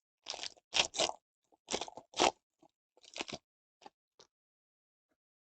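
A trading-card pack wrapper being torn open and crinkled, in a string of short crackly rustles over the first three and a half seconds.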